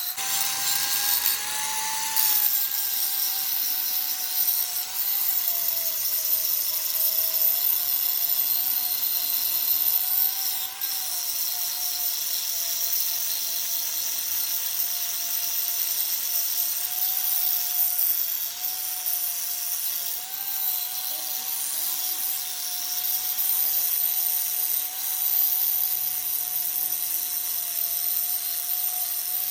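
A power tool running steadily under load, a single whine that wavers slightly in pitch with a hiss of cutting over it.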